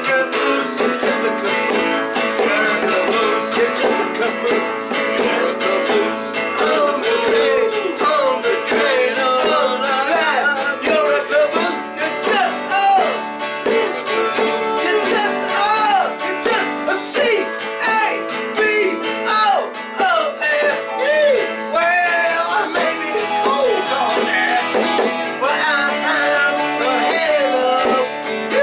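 Small band playing a country-style song live: strummed acoustic guitar, a hand drum and an electronic keyboard.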